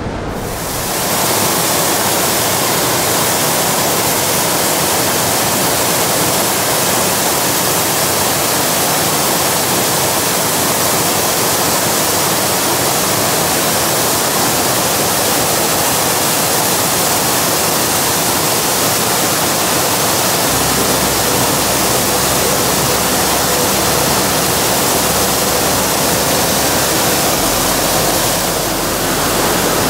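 Loud, steady rush of mountain-stream water. A low rumble joins about two-thirds of the way through.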